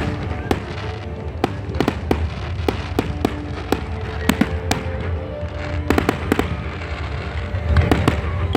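Fireworks display: sharp bangs and cracks of exploding shells, two or three a second, over a continuous low rumble of bursts.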